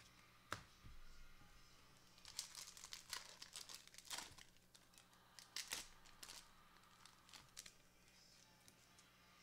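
Faint crinkling and rustling of plastic trading-card packaging worked by gloved hands, with a sharp click about half a second in and a run of crinkles through the middle.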